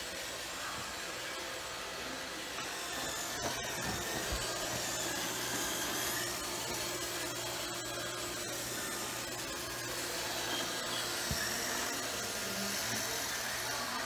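iRobot Roomba robot vacuum running: a steady whir of its vacuum motor and brushes, with a low hum that sets in a few seconds in.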